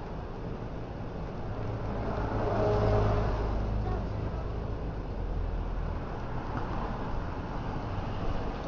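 A motor vehicle running nearby, its sound swelling to its loudest about three seconds in and then easing off, over a steady low rumble.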